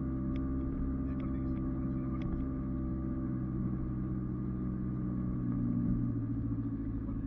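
A four-by-four's engine running steadily, a low, even drone that swells slightly about six seconds in, with a few faint clicks in the first couple of seconds.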